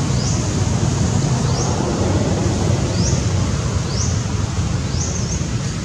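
Steady rumble of wind buffeting the microphone, with a short high chirp that rises in pitch repeating about once a second.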